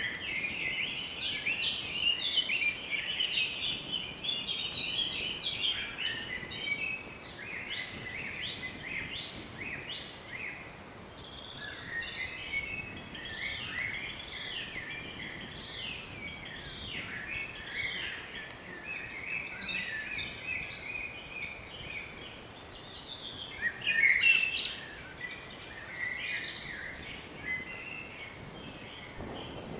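Several songbirds singing and chirping together in a dense, overlapping chorus of short, high trills, with one louder call about four-fifths of the way through.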